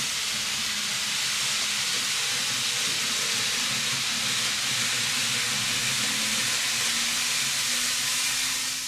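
Kato 0 Series Shinkansen N gauge model train running along the track, a steady hiss of wheels on rail with a faint low hum underneath, fading away near the end.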